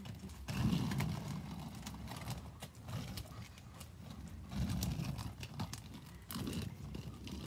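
Quad roller skate wheels rolling over rough pavement, a low gritty rumble that swells about four times with the skater's pushes, with scattered clicks and clacks from the skates.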